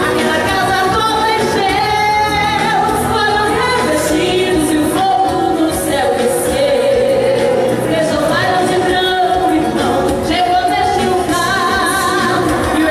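A woman singing a gospel praise song into a handheld microphone over amplified backing music with a steady beat.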